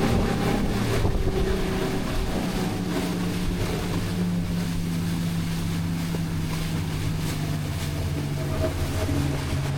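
A charter fishing boat's engine running steadily under way, a low even hum, with wind noise on the microphone.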